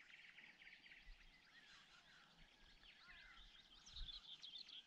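Faint birdsong from several small birds: quick overlapping chirps and short trills. A soft low thud about four seconds in.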